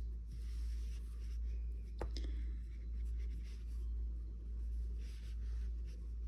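Soft rustling and scraping as black yarn and an embroidery needle are drawn through a plush-yarn crochet doll's head, over a steady low hum that swells and fades about once a second. A single sharp click comes about two seconds in.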